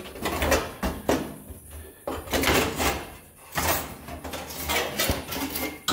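Loose cut-off strip of sheet metal scraping and rattling against the panel seam as it is worked free by hand from behind a freshly cut and butt-welded trunk gutter, in irregular scrapes and knocks.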